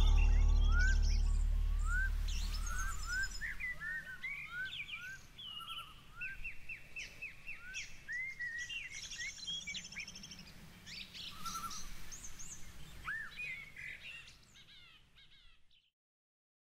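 Several birds singing and calling, a mix of short rising whistles, chirps and quick trills, over the last held chord of background music that fades away in the first few seconds. The birdsong goes on alone, fades, and stops about a second before the end.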